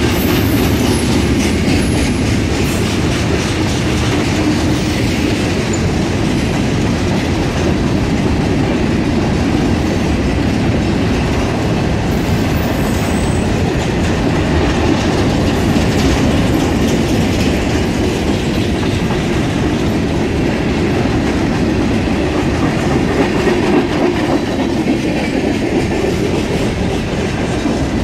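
Freight train of tank cars and covered hoppers rolling past: a steady rumble of steel wheels on rail with a rhythmic clickety-clack.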